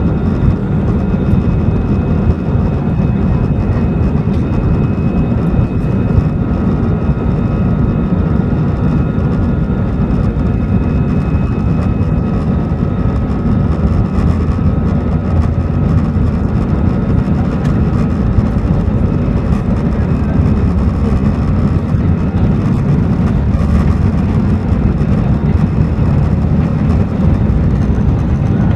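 Airbus A320's jet engines at takeoff thrust as the airliner accelerates down the runway on its takeoff roll, heard from inside the cabin: a loud, steady deep rumble with a thin high whine above it that fades out about halfway through.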